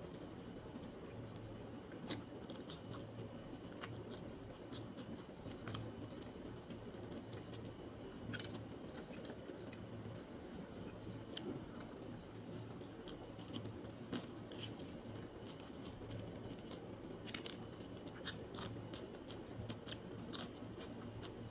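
Close-miked eating by hand: fingers pulling apart roast chicken and rice, and chewing with sharp mouth clicks scattered throughout, more of them near the end, over steady low background noise.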